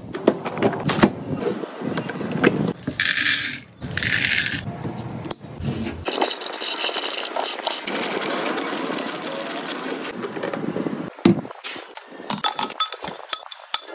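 Snack packaging handled in quick succession: plastic wrappers crinkling and boxes scraping and tapping on a countertop, with two short hissing bursts a few seconds in. Near the end, lollipops dropped into a glass bowl clink against the glass.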